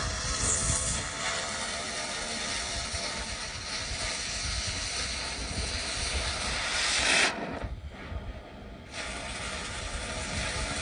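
Oxy-acetylene cutting torch hissing steadily as it cuts through a pipe. About seven seconds in the hiss swells, then drops out for about a second and a half before starting again.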